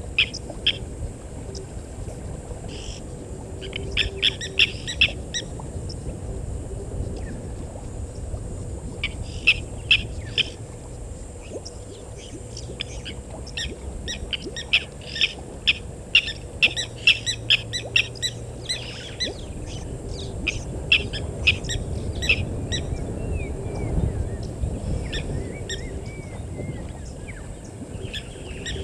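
Wild birds calling in bouts of rapid, sharp repeated notes, busiest in the middle, followed by a few short whistled glides near the end, over a low steady background rumble.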